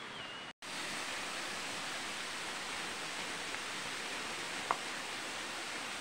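Steady rushing and splashing of a tall waterfall falling down a rock face onto stones, starting after a sudden split-second dropout about half a second in.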